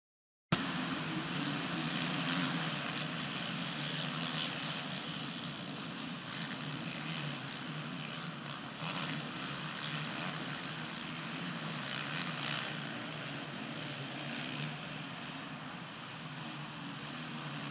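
Several dirt bike engines running together in a supercross race: a steady mixed engine noise that cuts in abruptly about half a second in.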